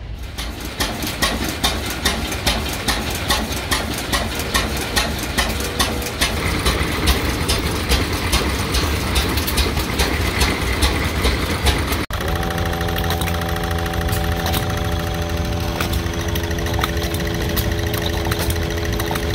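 Antique hit-and-miss gas engines running, with sharp, uneven exhaust pops about three to four a second. About twelve seconds in the sound cuts to a steadier engine hum with fast light ticking.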